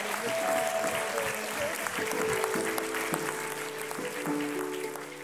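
Audience applauding, the clapping thinning out as music with long held notes comes in about two seconds in.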